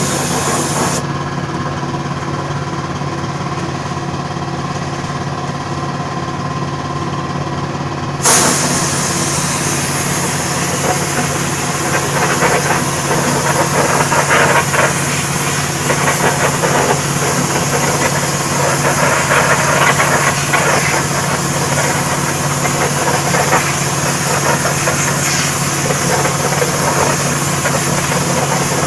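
Spray gun hissing as it sprays silver chrome onto a steel wheel, over the steady hum of the motor supplying it. The hiss stops about a second in and starts again suddenly about eight seconds in, then comes and goes with the gun's passes.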